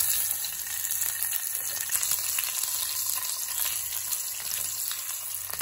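Cumin seeds, chopped green chillies and garlic sizzling and crackling in hot oil in a stainless steel pan: the tempering stage of the dish.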